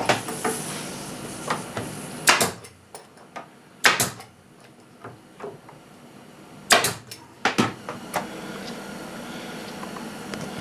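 Sharp knocks on plywood during a glue-up of drawer runners into a tool-chest side: several loud strikes, some in quick pairs, with lighter clicks and handling between them.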